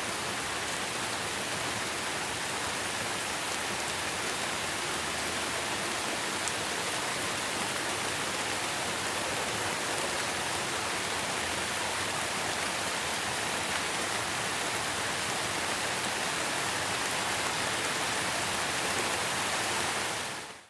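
Steady, even hiss like heavy rain, which cuts off abruptly near the end.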